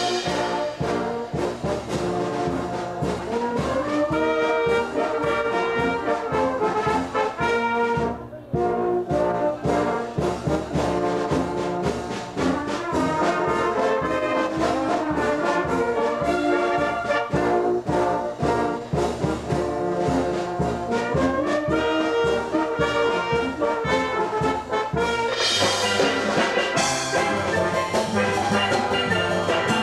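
Wind band of trumpets, clarinets and other brass instruments playing music under a conductor. About 26 seconds in, the music changes to a steel drum band playing.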